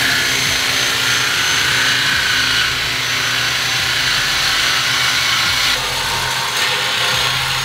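A power tool steadily cutting through exhaust pipe, cutting out the secondary catalytic converters under the car.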